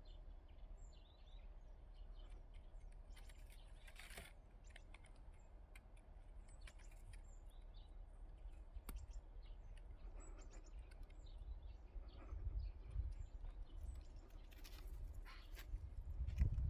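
Birds chirping faintly in short scattered calls over a low outdoor rumble that swells twice in the second half.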